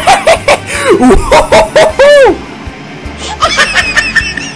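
High-pitched laughter: a quick run of short "ha" bursts ending on one longer one, then a second, higher giggle near the end.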